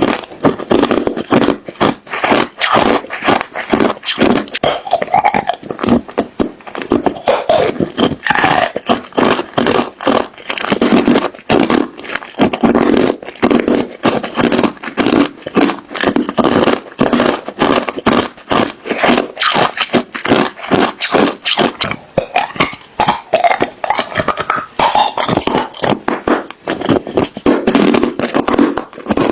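Ice cubes being chewed and crunched close to the microphone: a loud, continuous run of rapid, irregular cracks and crackles.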